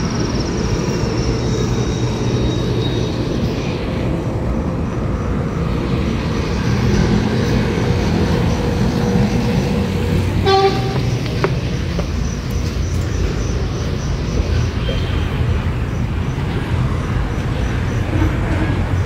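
Street traffic noise, a steady low rumble, with a short vehicle horn toot about halfway through.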